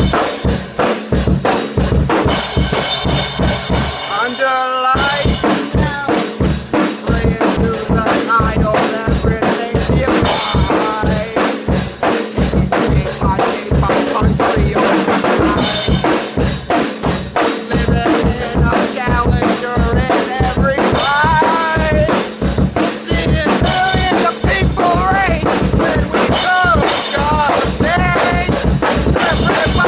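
Loud music with a fast, steady drum beat and a melody line over it; the drums drop out for about a second, four seconds in, then come back.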